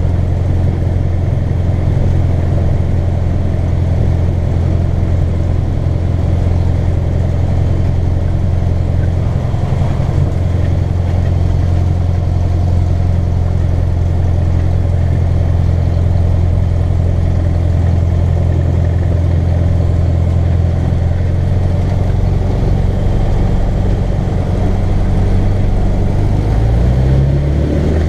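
Cessna 150L's four-cylinder Continental O-200 engine and propeller running at low power, heard from inside the cockpit. The pitch steps up near the end as the engine is throttled up.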